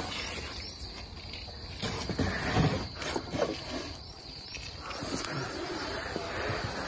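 A man scuffling, bumping and grunting with effort as he squeezes through a low hatch into a cramped pool pump house. The loudest knocks and grunts come a couple of seconds in.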